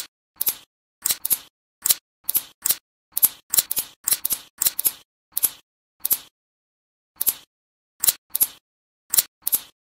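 Small neodymium magnet balls snapping one by one onto a flat panel of magnet balls: about twenty sharp clicks at an uneven pace, some in quick pairs, with a pause of about a second past the middle.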